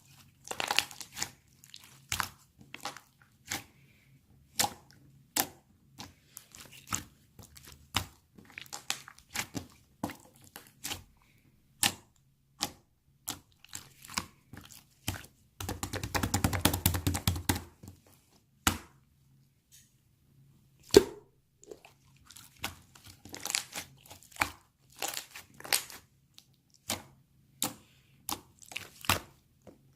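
Irregular sharp cracks and crinkling clicks of a crisp material being handled close to the microphone, with a dense stretch of crackling and a low rumble about halfway through.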